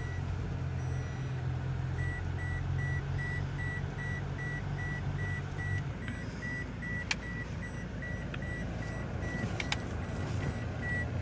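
Vehicle engine and road noise heard from inside the cabin while driving, the low engine hum changing about halfway through. An electronic warning beep repeats about twice a second through most of it.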